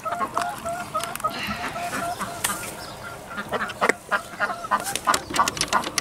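Domestic ducks quacking: a quick run of short calls in the first few seconds, then scattered short, sharp sounds.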